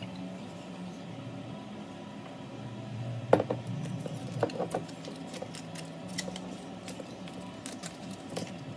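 Metallic foil capsule being torn and peeled off the neck of a sparkling wine bottle: a sharp tear about three seconds in, then irregular crinkling and crackling of the foil. A low steady hum runs underneath.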